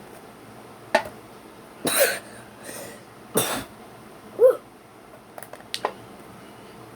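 A person's throat making a few short, harsh, cough-like bursts, with one brief voiced sound and a few sharp clicks in between.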